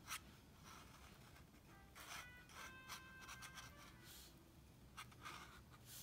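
Fountain pen nib scratching across sketchbook paper in a series of short, quiet strokes as lines are drawn.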